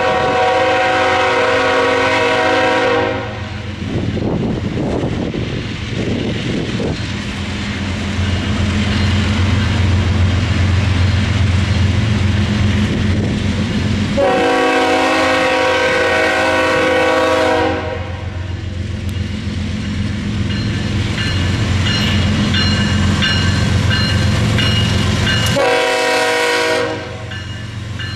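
CSX GE ES44AH diesel locomotive's air horn sounding two long blasts and one short, the long-long-short opening of a grade-crossing signal, over the steady drone of its GEVO-12 engine and the rumble of wheels as the train approaches.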